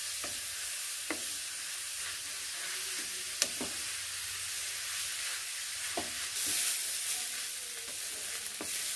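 Grated carrots sizzling in desi ghee in a metal kadhai while being stirred with a wooden spatula, the carrots being roasted for gajar halwa. A steady sizzle, with a few sharp knocks of the spatula against the pan, the loudest about three and a half seconds in.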